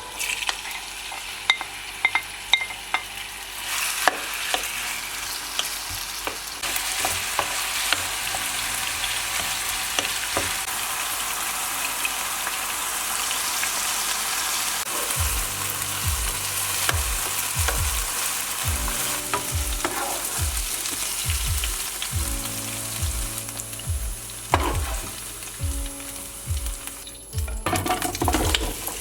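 Chicken sizzling as it is sautéed in a frying pan, with a spatula clicking and scraping against the pan as it is stirred.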